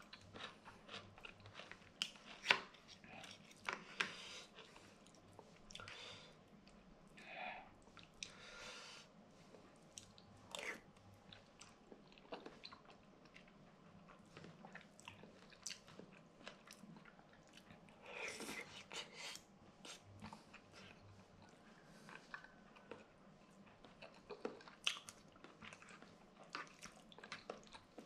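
A person chewing kimchi noodles close to the microphone: a steady run of small wet mouth clicks and smacks, with a few longer, breathier eating sounds now and then.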